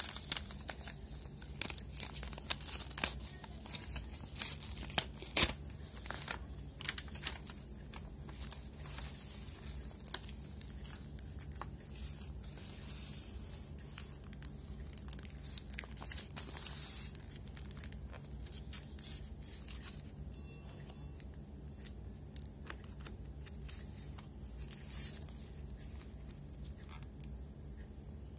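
Paper sleeve and gold foil wrapper of a Dairy Milk Silk chocolate bar being handled and torn open by hand: crinkling and tearing with many sharp crackles, densest in the first half and sparser later.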